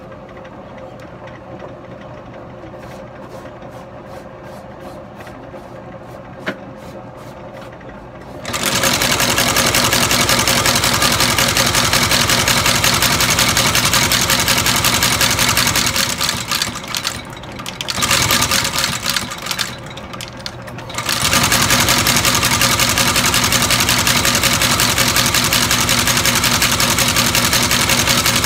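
Sole stitching machine sewing through a leather shoe sole. After several seconds of faint, slow ticking, the machine starts up at about eight seconds and runs with a loud, fast, steady clatter. Past the middle it eases off unevenly for a few seconds, then runs at full speed again.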